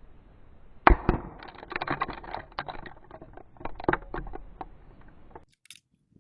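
A single shot from a Remington 700 rifle in .300 Remington Ultra Magnum about a second in, followed by about three seconds of irregular clicks and knocks.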